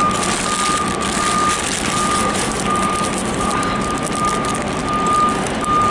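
Vehicle reversing alarm beeping: one steady high beep repeating a little more than once a second, over the even hiss of street traffic.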